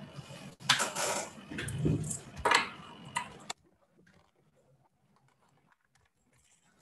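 Irregular noisy bursts and knocks, handling noise on an open microphone in a video call, cutting off about three and a half seconds in; near silence after.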